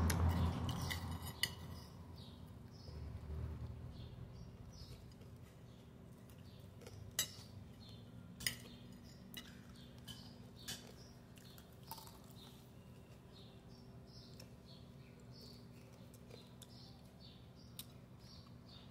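Cutlery clinking now and then against a plate while someone eats, a few sharp, separate clinks, the loudest about seven and eight and a half seconds in. A low rumble dies away in the first two seconds.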